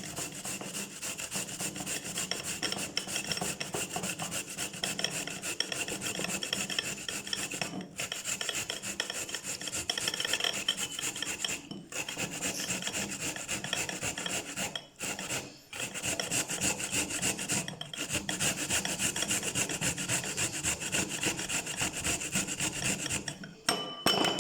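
Raw turnip being grated by hand on a metal grater: rapid, continuous rasping strokes, broken by a few short pauses.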